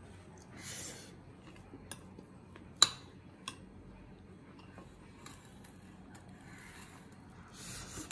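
Metal spoon scraping and tapping against a ceramic bowl while scooping rice to eat. There is one sharp clink about three seconds in and a lighter tap just after.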